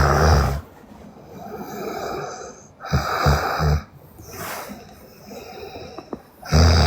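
A sleeping woman snoring loudly: a snore at the start, another about three seconds in, and a third beginning near the end, with softer breathing between.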